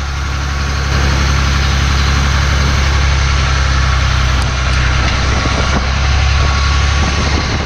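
A truck driving along a road, heard from a camera mounted outside by its front wheel: a loud, steady low drone of engine and tyres with a hiss of road and wind noise over it.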